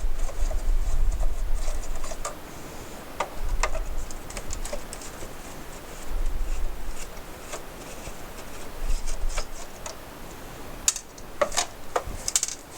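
Screws being taken out of an Apple II floppy drive and its metal parts handled: scattered small clicks and scrapes with low bumps, and a quick run of sharper clicks near the end as it comes apart.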